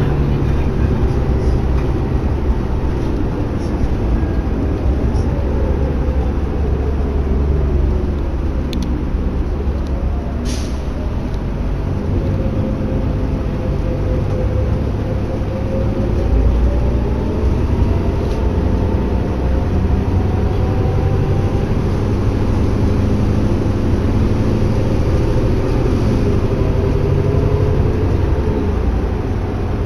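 2011 New Flyer D60LFR articulated diesel bus heard from inside the cabin while under way: a steady low drivetrain and road rumble, with a whine that slowly falls and rises in pitch as the bus changes speed. A couple of short clicks or rattles about nine and ten seconds in.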